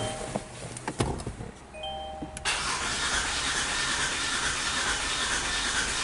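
Kia Sportage petrol engine cranking over on the starter without catching: a crank-no-start. A few clicks and a short beep come first, then the steady cranking starts suddenly about two and a half seconds in.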